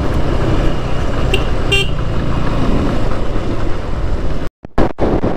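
KTM Duke motorcycle's single-cylinder engine running steadily under way, with wind and road noise. A vehicle horn sounds briefly twice, about a second and a half in, and the sound cuts out for about half a second near the end.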